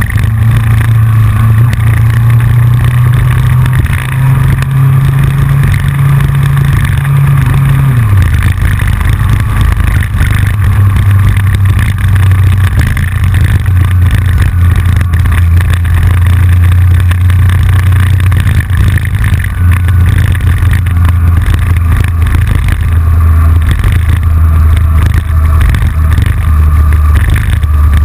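Yamaha FJR motorcycle's inline-four engine running under way, its note dropping suddenly about eight seconds in and then holding lower, with a steady clicking from the loosely fairing-mounted camera.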